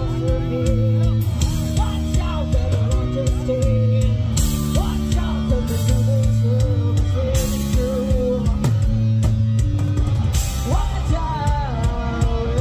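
Rock power trio playing live: guitar, bass and drums under a sung vocal line, with a cymbal crash about every three seconds.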